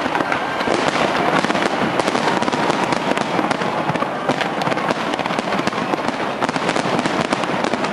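Fireworks display going off continuously: a dense, unbroken crackle of many bangs and pops close together.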